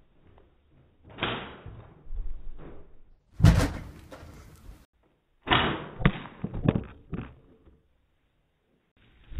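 A series of heavy thumps and bangs as bodies land and roll on a carpeted floor, the loudest about three and a half seconds in.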